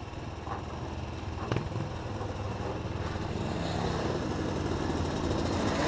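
125cc two-stroke kart engines running steadily, slowly getting a little louder, with a single sharp knock about a second and a half in.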